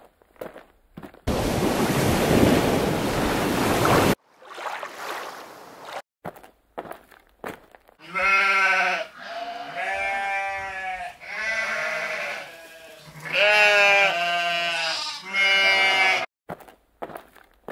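A bleating farm animal, five long wavering calls about a second each, starting about eight seconds in. About a second in comes a loud rushing noise lasting some three seconds.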